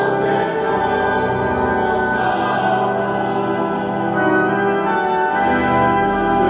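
Choir singing a hymn in sustained chords, accompanied by the Walcker pipe organ.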